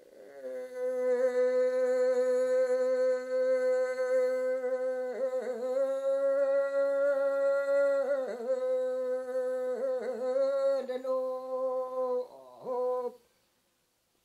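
Unaccompanied solo voice chanting a Yami (Tao) song for going out to sea to fish, in free-rhythm recitative style. The voice holds long notes on nearly one steady pitch, broken by brief dips and turns, and stops about a second before the end.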